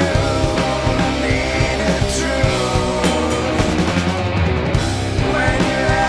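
Heavy rock played by a band: electric guitars over bass and drums, at a steady loud level.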